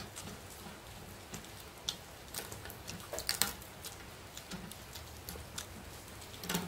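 Fingers mixing and scraping rice and dal on a stainless steel plate: irregular small wet clicks and scrapes, with a cluster of louder ones about three seconds in and another near the end.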